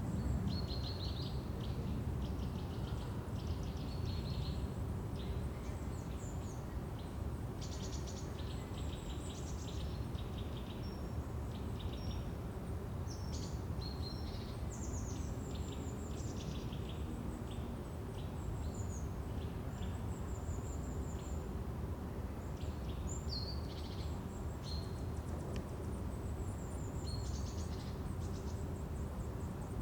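Forest ambience: many small birds chirping and trilling in short high calls, over a steady low rumble of background noise.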